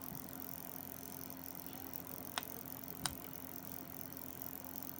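Small homemade pulse motor running steadily, its four-magnet rotor spun at about 665 rpm by three parallel coils switched by a reed switch, giving a steady whir and hum. Two sharp clicks a little after halfway.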